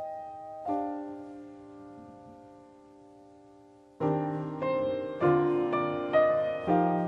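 Background piano music: a soft chord rings and fades, then from about four seconds in a run of fuller chords struck roughly every half second.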